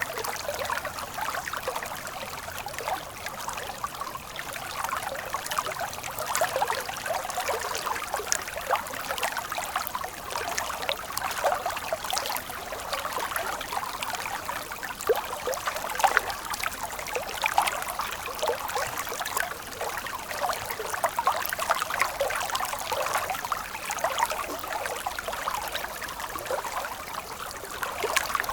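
Stream water flowing and trickling steadily, with many small splashes and gurgles.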